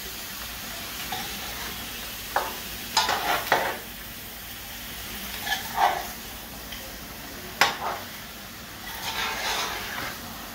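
Spoon stirring and scraping fish curry in a large metal pan, with a steady sizzle as the curry fries down (bunjal). Sharp scrapes and knocks against the pan come every second or two.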